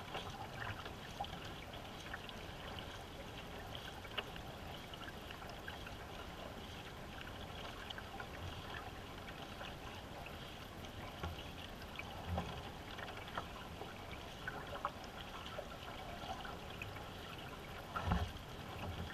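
Water rushing and trickling along the hull of a paddled racing canoe, a steady wash with scattered small splashes and knocks. There is one louder thump near the end.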